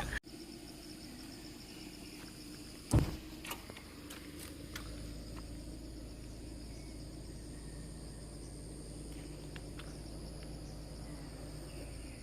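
Insects chirring steadily in a high, evenly pulsing trill over faint outdoor hum. A single sharp knock about three seconds in, followed by a few faint ticks.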